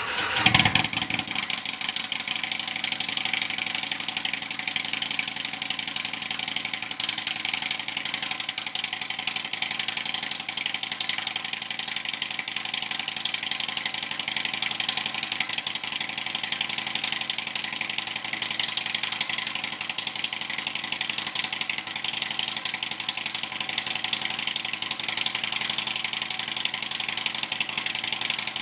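Indian Thunder Stroke 111 V-twin with Stage 3 cams and Rinehart slip-on mufflers, running at a steady idle after a brief louder surge about a second in, with a fast ticking mechanical clatter under the exhaust note.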